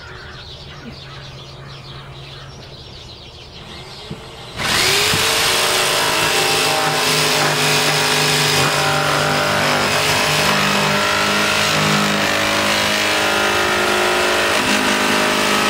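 A handheld electric power saw cutting a slot in a plastic 5-gallon bucket. The motor starts with a rising whine about four and a half seconds in, then runs steadily under load.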